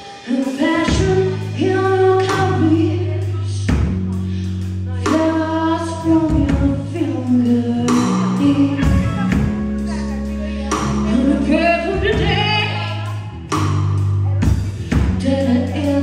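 Live rock band playing: a woman sings a bending melody over electric guitar, bass guitar and a drum kit.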